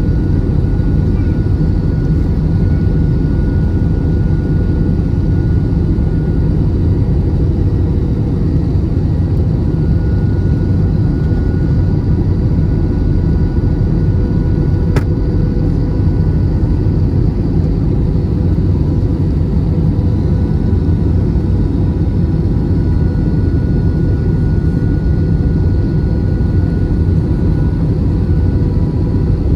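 Steady cabin noise inside an Airbus A320-216 airliner: a loud, even rumble of engines and rushing air with a few faint steady whining tones above it, and a single sharp click about halfway through.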